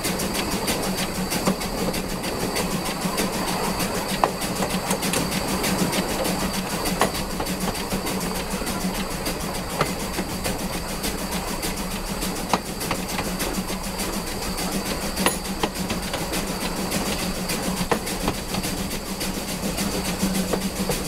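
Steam locomotive's wheels rolling along the rails, with a steady running noise and low hum. A sharp click comes as the wheels cross each rail joint, regularly about every three seconds.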